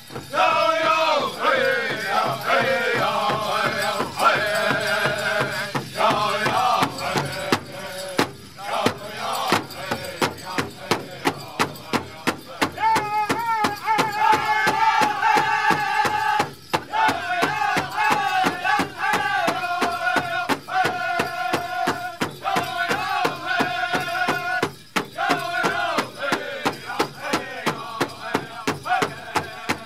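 A powwow drum group singing an intertribal song together, pitched high, while beating a large shared powwow drum with sticks in a steady beat; the singing breaks briefly between phrases.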